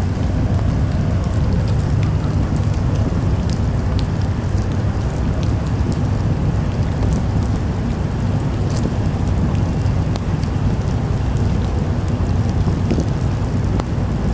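Heavy rain falling steadily, with scattered drop ticks over a low, even rumble.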